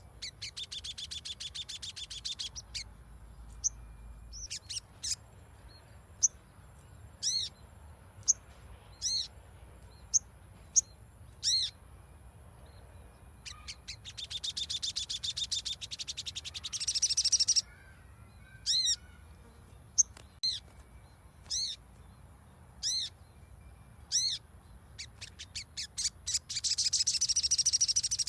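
Little spiderhunter (sogon) calling: sharp, high single chip notes every second or two, broken three times by long, fast chattering trills. It is a lure call meant to set a silent caged bird singing.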